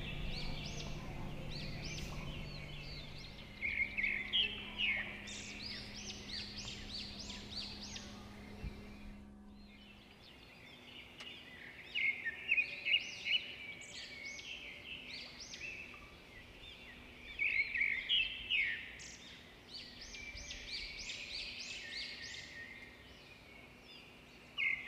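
Small birds chirping in repeated bursts of quick, high chirps, over a low steady hum.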